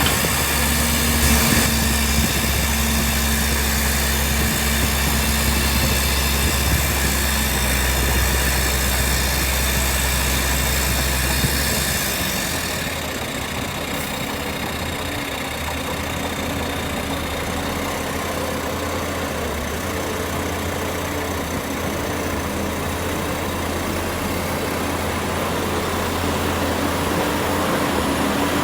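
Heavy diesel engine of earthmoving machinery running steadily. About twelve seconds in it drops to a lower, quieter note, then slowly builds again near the end.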